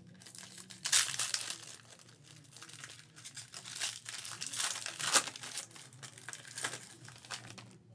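Foil wrapper of a trading-card pack being torn open and peeled back by hand: steady crinkling with several sharper rips and crackles, the loudest about a second in and around five seconds in.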